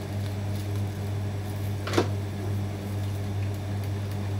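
A steady low hum throughout, with one sharp knock about two seconds in as the plastic electric kettle is set down on the table.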